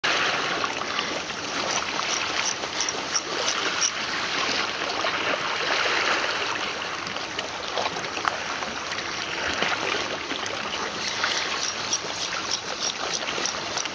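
Seawater washing and trickling over the shoreline, a steady wash with many small splashes and drips throughout.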